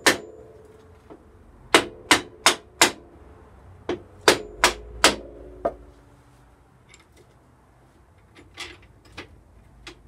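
Hammer blows driving a motorcycle's rear wheel spindle through the hub and swing arm: one strike, then two quick runs of four sharp metallic knocks about three a second, each leaving a short ring. A few lighter knocks follow near the end.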